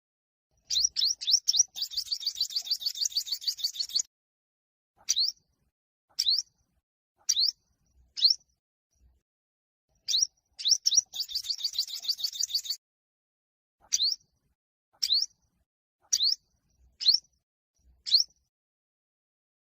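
Olive-backed sunbird singing its competitive song. It gives a series of sharp, high, quickly sweeping notes about a second apart, twice breaking into a fast high trill that lasts about two seconds.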